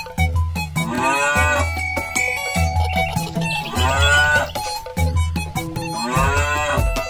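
Cow mooing three times, about two and a half seconds apart, over a children's music backing with a steady bass beat.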